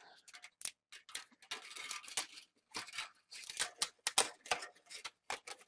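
Thin metal foil shield being peeled by hand off the back of a laptop LCD panel: irregular crinkling and crackling in short bursts.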